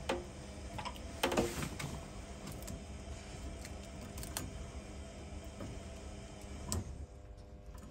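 Scattered light clicks and knocks of tools and pipework being handled, the busiest cluster about a second and a half in, over a low steady hum.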